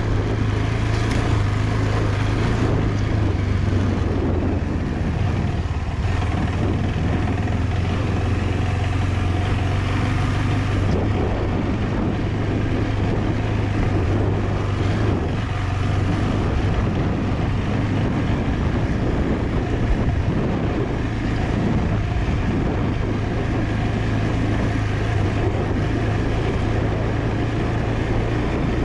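KTM 390 Adventure's single-cylinder engine running at a steady, low speed while riding a dirt track, the note holding nearly constant, over an even hiss of wind and tyre noise.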